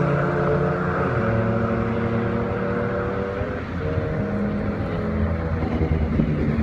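Car engine running at steady high revs, its note briefly dipping a little over halfway and then holding again.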